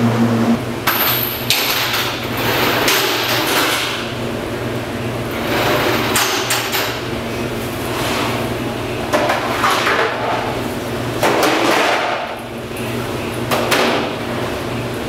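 Work noise in a meat-cutting room: a steady low hum under irregular knocks and clatter every two to three seconds.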